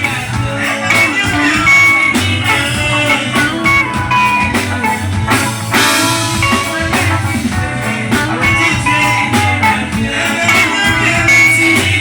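A band playing guitar-led music, with picked guitar notes over a steady bass line and drum beats.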